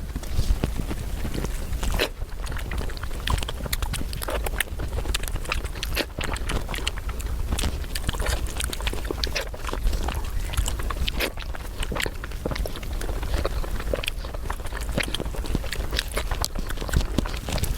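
Close-miked eating: continuous chewing with many short, sharp wet clicks and smacks.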